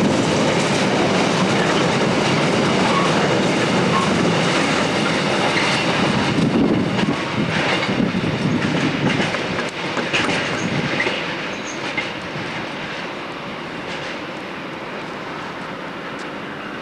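A train passing on the line, wheels clattering over the rail joints, the sound fading away over the last few seconds.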